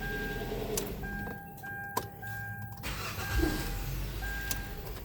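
2011 Kia Sorento engine running with a low steady rumble just after being started on its newly replaced starter, a test start that shows the new starter works. A chime sounds in short repeated beeps over it.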